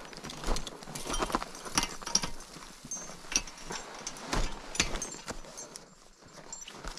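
Footsteps in crampons on snow and ice, irregular steps about one or two a second, with small metal clinks from climbing hardware; the steps fade a little near the end.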